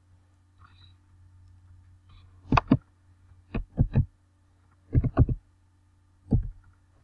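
Computer keyboard keys clicking: about ten sharp keystrokes in short clusters as the vi save-and-quit command ":wq" is typed and entered.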